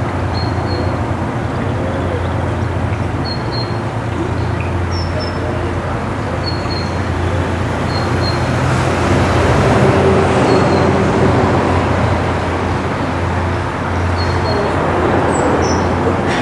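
Narrowboat's diesel engine running steadily under way, a constant low drone, with short high bird chirps scattered over it.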